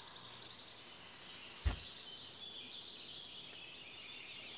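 Faint, steady chirping of birds in the background, with one sharp low thump a little under two seconds in.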